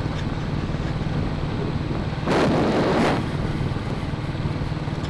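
Royal Enfield single-cylinder motorcycle engine thumping along steadily at about 30 mph on a dirt road, under wind noise on the helmet microphone. A louder rush of noise comes a little over two seconds in and lasts under a second.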